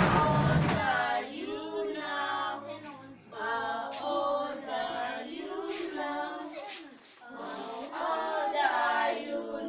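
A group of children singing a song together in phrases, with short breaks about three and seven seconds in.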